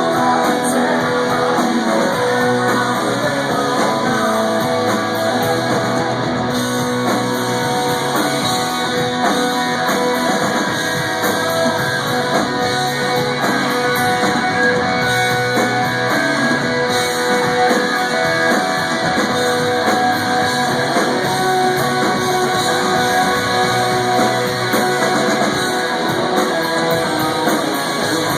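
Live rock band playing loud and steady, driven by strummed electric guitar, with little deep bass.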